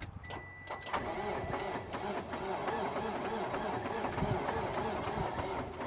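Freightliner semi truck's starter motor cranking the diesel engine off a 24-volt jump box: a few clicks, then a steady whirring from about a second in, without the engine catching. The weak batteries and dirty cables are why it will not start.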